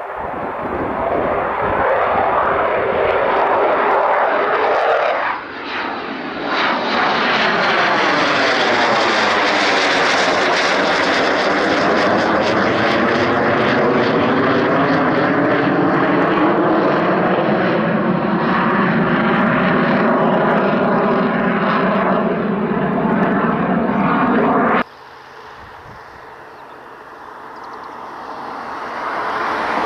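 Eurofighter Typhoon's twin turbofan jet engines, loud and building as the jet comes in, passing overhead about five seconds in, then a sustained roar with slowly sweeping, shifting tones as it banks and moves away. The sound cuts off abruptly about 25 seconds in, and a quieter jet roar builds again near the end as the aircraft approaches once more.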